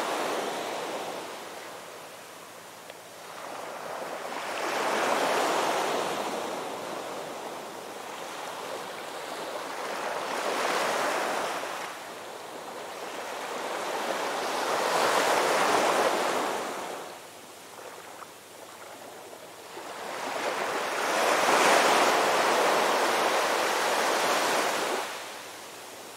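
Ocean surf breaking on a beach, each wave swelling into a rushing hiss and then fading as it washes out; four waves roll in, about one every five seconds.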